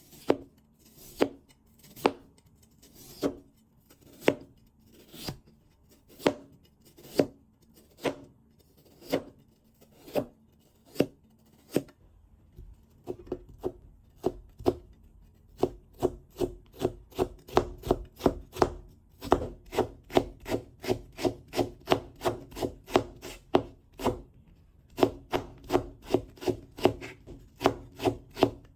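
Kitchen knife cutting raw potato against a cutting board: single sharp cuts about once a second at first, then from about halfway in a fast, even run of about three cuts a second as the potato is cut into thin strings, with a short break near the end.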